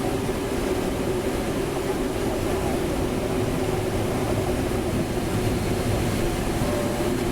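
Steady rush of air over a glider's cockpit canopy, with a low hum underneath, as the sailplane flies at increased airspeed while descending toward landing.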